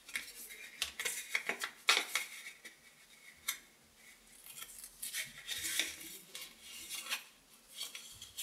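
Double-sided tape being pulled and pressed by hand onto a flattened cardboard toilet-paper tube: crackly rustling of tape and cardboard with many sharp little clicks, the loudest about two seconds in.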